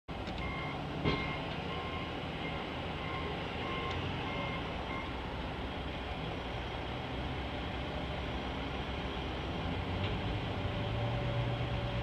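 Backup alarm of a snow-clearing truck or loader beeping about one and a half times a second for around five seconds, over the steady low running of heavy vehicle engines. A single sharp knock comes about a second in, and the engine drone grows louder near the end.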